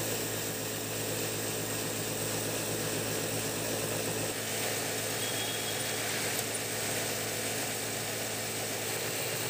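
Jaki JR8700 industrial sewing machine stitching, driven by its belt-drive motor under the table: a steady mechanical hum and whir that holds an even level throughout.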